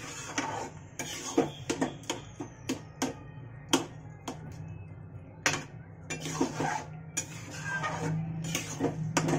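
Metal spatula scraping and knocking against a steel kadhai as thick tomato-and-potato chaat is stirred, in irregular clusters of clinks and scrapes.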